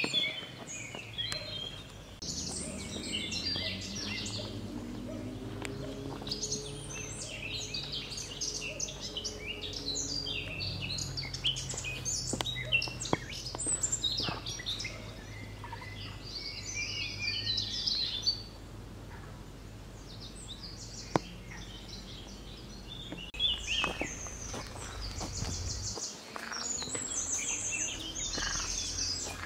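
Many small birds chirping and singing in overlapping short phrases in woodland, over a low steady rumble that fades about two thirds of the way through.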